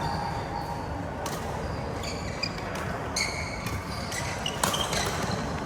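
Badminton play on an indoor court: several sharp racket hits on the shuttlecock and short high squeaks of court shoes on the floor, over steady low background noise.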